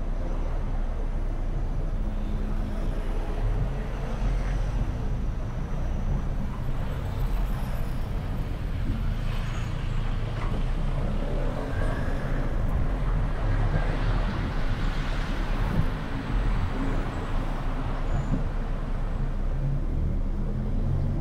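Car driving slowly in city traffic: a steady low engine rumble and road noise. About ten seconds in a louder stretch of mid-pitched engine noise lasts a few seconds, as a motorbike and a scooter pass alongside.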